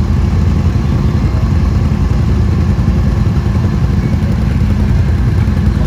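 Off-road vehicle engines running steadily at an even speed, a constant low rumble with no revving.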